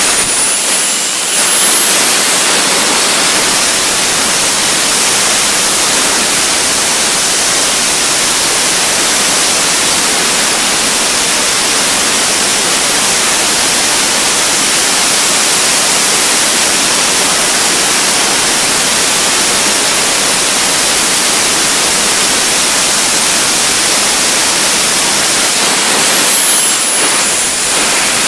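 Small turbine jet engine of a radio-control model jet running: a loud rushing roar with a high whine that climbs over the first few seconds as it spools up, holds steady, then drops again near the end as it is throttled back.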